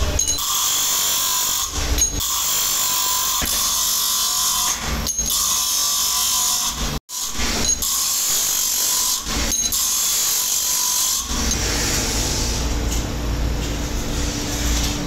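Electric motor-driven grinding disc running, a steady motor whine with a hissing grind of metal. It drops out for an instant about seven seconds in, and from about eleven seconds it turns lower and rumblier.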